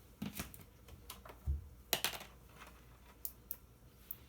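Scattered sharp clicks and light knocks of hard plastic vacuum-cleaner parts being handled during disassembly, with one low thump about a second and a half in.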